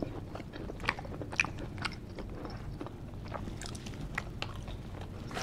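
Close-miked chewing and biting of food, with scattered wet mouth clicks and smacks and two sharper clicks about a second and a second and a half in, over a faint low hum.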